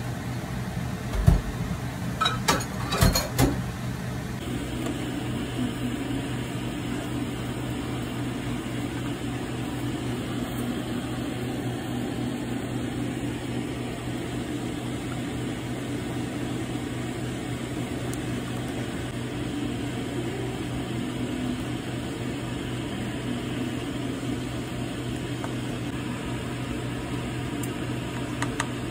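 Steady low mechanical hum of a kitchen appliance, with a few sharp knocks about one to three and a half seconds in.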